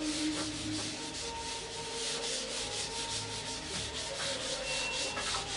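Whiteboard duster rubbed rapidly back and forth across a whiteboard, wiping off marker writing, in quick, even strokes.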